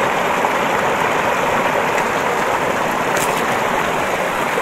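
Steady rushing of flowing water, an even hiss with no let-up.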